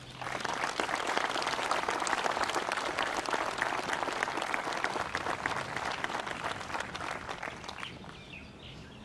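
Audience applauding: a dense patter of many hands clapping that starts at once and fades away over the last couple of seconds.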